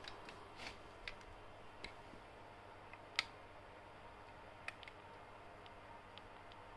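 A few separate faint clicks of buttons being pressed on a DSLR camera, the loudest about three seconds in, over a faint steady hum.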